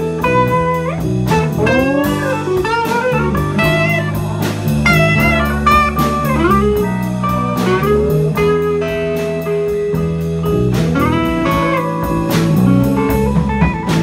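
Live blues-rock band playing an instrumental passage: an electric guitar takes a lead with bent and sliding notes over drums with a steady cymbal beat and a low accompaniment.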